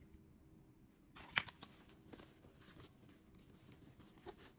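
Faint rustling of cardboard CD sleeves and a disc being handled and set down on a table, with one sharp click about a second and a half in, a few lighter ticks after it, and another small tap near the end.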